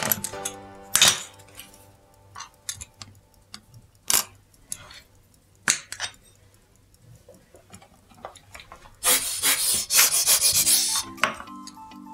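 Hand work on a small clock: scattered sharp clicks and taps of small metal tools and parts, then a couple of seconds of continuous rubbing about nine seconds in. Background music comes back near the end.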